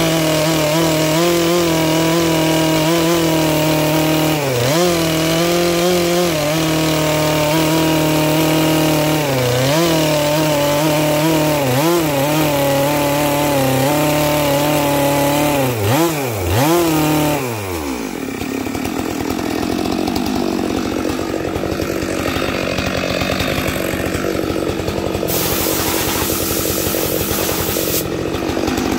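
Stihl MS 462 two-stroke chainsaw at full throttle, ripping lengthwise through a dry walnut log under its own weight; the engine note sags briefly a few times as the chain bites. About two-thirds of the way through, the revs fall away and the saw runs on at a lower, rough idle.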